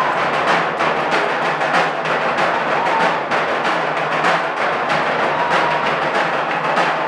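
Drum ensemble playing a loud, fast, dense rhythm of sharp strikes without a break.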